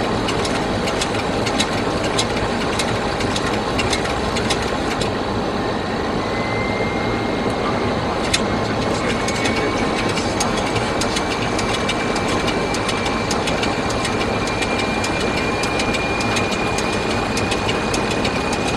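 Aircraft cockpit noise: a steady drone of engine and rushing air. About six seconds in, a faint thin whine appears and slowly climbs in pitch.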